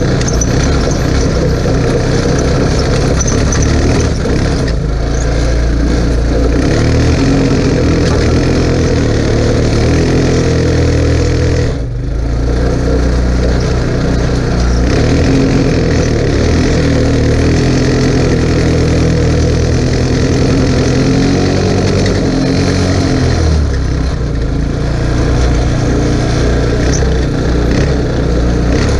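A 150 cc Chinese ATV engine running as the quad is ridden over rough trail and creek bed. The engine note rises and falls with the throttle, with a brief drop in level about twelve seconds in.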